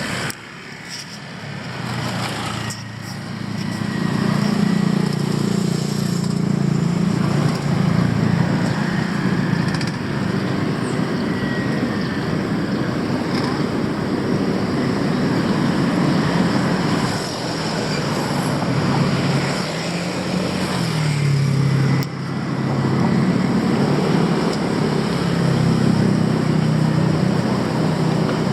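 City street traffic: a steady wash of road noise with the low hum of passing vehicle engines, their pitch shifting as they pass, and two brief dips in the noise.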